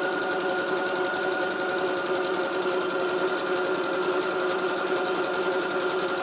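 Electric domestic sewing machine, a Brother XL-2250, running steadily at speed while sewing a knit (stretch) stitch, its motor giving a steady whine over the needle mechanism's rapid clatter. It runs evenly with no knock, the fault on zigzag having been repaired.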